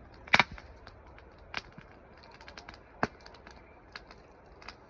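Wood fire crackling, with irregular sharp pops among fainter ticks; the loudest pop comes just after the start, and others follow about every second and a half.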